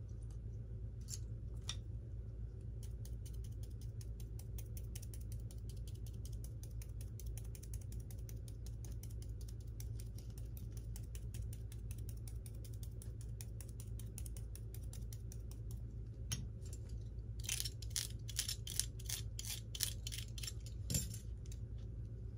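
Rapid, evenly spaced mechanical clicking over a steady low hum, with louder irregular clicks for a few seconds near the end.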